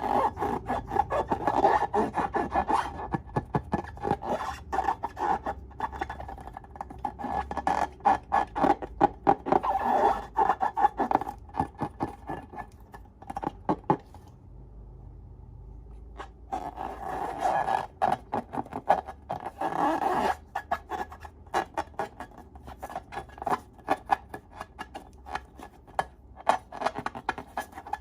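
Slime being stirred and squished by hand, a dense run of sticky, wet crackling clicks. The clicking stops for about two seconds halfway through, then starts again.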